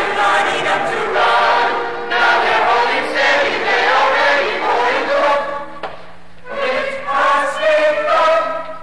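Stage chorus of mixed voices singing together, breaking off briefly about six seconds in and again near the end. A steady low hum from the old recording shows in the gaps.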